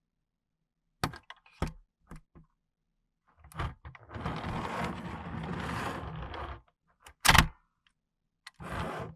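Sharp plastic clicks and knocks from toys being handled, with a rattling, rumbling stretch of two to three seconds in the middle, then another loud click.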